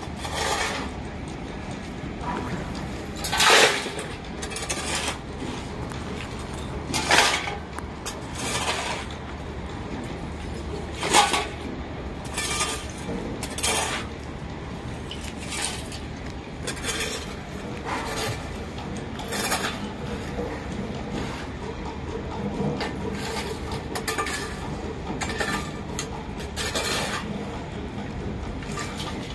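Irregular metallic clanks and knocks of construction work, a few of them sharp and loud, over a steady low hum.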